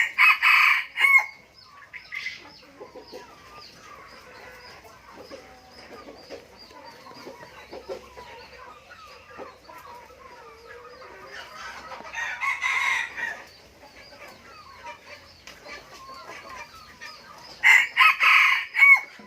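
Decoy junglefowl rooster crowing three times, short crows at the start, about twelve seconds in and near the end.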